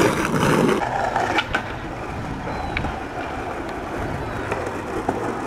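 Skateboard rolling over a plank deck: wheels rumbling steadily, with a few sharp clacks of the board. A louder rush in the first second drops off suddenly.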